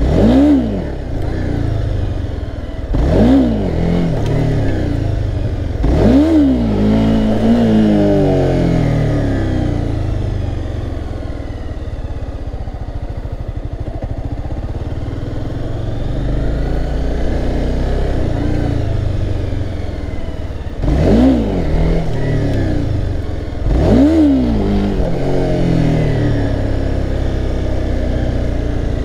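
Honda CBR300R's single-cylinder engine revved up sharply and dropping back five times: near the start, about three and six seconds in, and twice about two-thirds through. These are the quick rev-and-clutch-pop bursts of wheelie attempts, with steadier riding in between.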